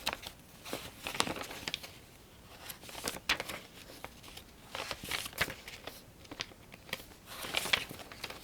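Tarot cards being handled: short, irregular bursts of rustling with small clicks of card against card.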